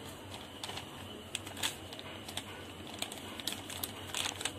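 Irregular light crinkles and clicks of a thin plastic milk packet being handled as batter is spooned into it.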